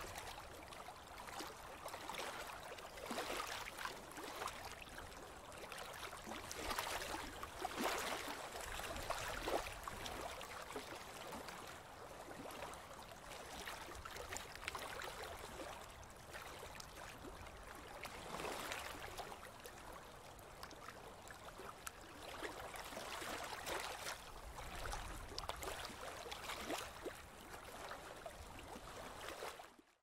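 Running river water: a steady rushing and gurgling with irregular louder swells every few seconds, cutting out abruptly at the very end.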